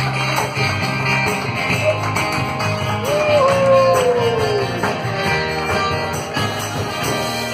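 Live band playing: guitars and drums, with a voice singing long sliding notes, and the seated audience clapping along.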